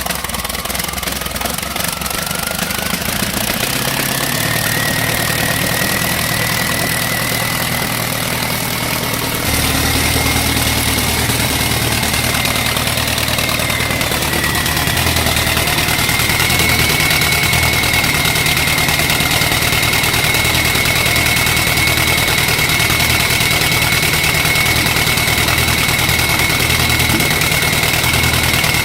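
An engine starting and running up: a high whine rises in pitch over the first few seconds, a deeper rumble comes in about ten seconds in, and it then runs steadily with a constant high whine over the rumble.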